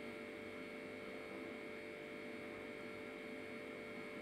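Steady faint electrical hum with a thin, even high whine, unchanging throughout; no knocks or other events.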